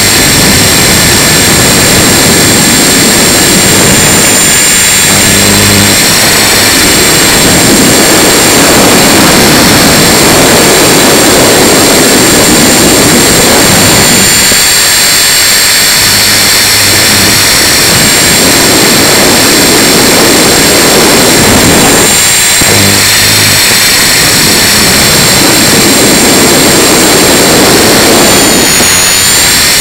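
Electric 450-size RC helicopter in flight: a steady high motor and gear whine, with a loud rushing noise that swells and fades every several seconds.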